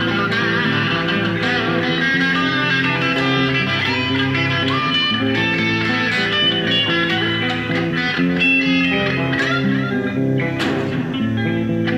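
Electric guitar playing a slow line of held, overlapping notes, with one sharp stroke near the end.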